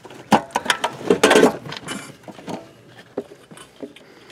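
A plastic wiring-harness plug being worked off a Honda P06 ECU's metal case. There is a cluster of clicks and rattles in the first two seconds, then a few lighter ticks as the connector comes loose.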